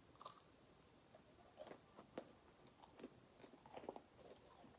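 Faint chewing of chicken fries, a few soft scattered mouth clicks over near silence.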